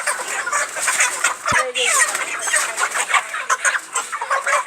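A flock of broiler chickens calling and clucking continuously, many short overlapping calls at once, with a single brief low knock about a second and a half in.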